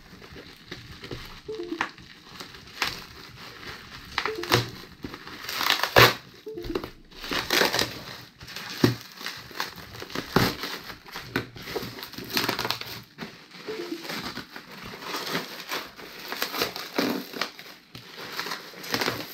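Bubble wrap and plastic packaging crinkling and crackling as it is poked open with a ballpoint pen and pulled off a cardboard box: an irregular run of crackles with sharper snaps now and then.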